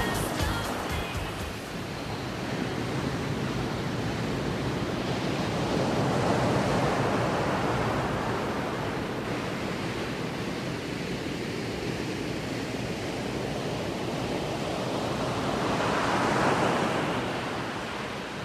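Sea surf washing on a sandy beach, swelling and easing in slow waves, then fading out near the end.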